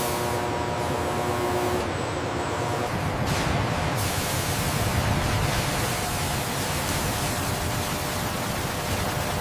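Steady rushing hiss of industrial noise with a low rumble underneath, like air or spray machinery on a factory floor. Faint steady hum tones fade out about two seconds in.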